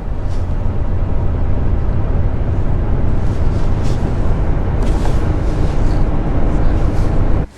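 A deep, steady rumbling noise with no clear pitch, presented as the sound of one of the solar system's moons. It cuts off abruptly near the end.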